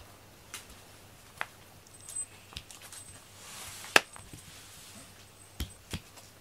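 Scattered light taps and clicks from a cat teaser toy on a string being flicked about and bouncing on a foam floor mat, with one sharp click about four seconds in, just after a soft brushing sound.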